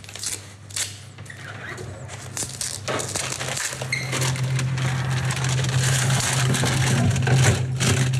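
Dry onion skin crackling and crinkling as a whole onion is peeled by hand close to the microphone. A low steady hum comes in about four seconds in.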